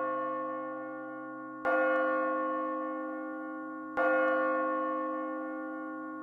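A church bell tolling: two strokes about two and a half seconds apart, each ringing on and slowly fading, over the ring of a stroke just before.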